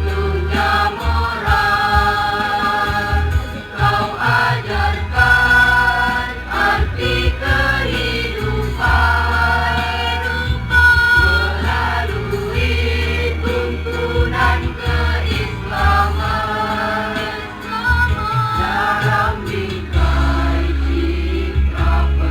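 School choir singing a madrasah hymn, holding long notes that change every second or two, over a steady low tone.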